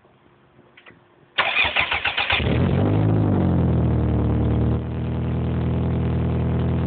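Toyota MR2 engine cranking for about a second, then catching and running through a Japspeed aftermarket exhaust. It flares briefly after firing and settles into a steady idle that eases down slightly near the end.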